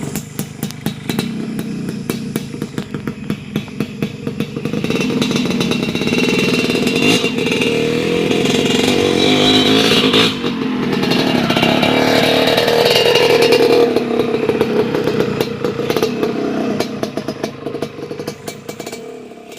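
Yamaha DT125 single-cylinder two-stroke engine breathing through an expansion-chamber exhaust. It pops unevenly at first, then revs up about five seconds in and holds high for several seconds, with a brief dip near the middle. It falls back to an uneven popping idle near the end.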